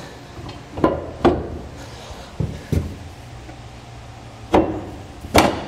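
Steel fifth-wheel hitch rail knocking and clunking against the hitch base's legs and the truck bed as it is slid and seated into place: about half a dozen sharp knocks, the loudest near the end.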